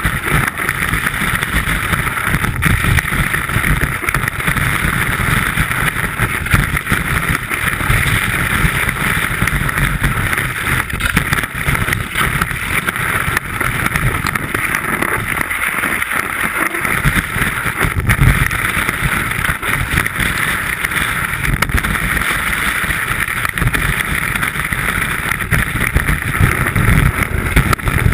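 Wind rushing over a ski-mounted action camera, with the skis hissing and scraping over snow during a downhill run. There is a steady rumble that dies down briefly about halfway through.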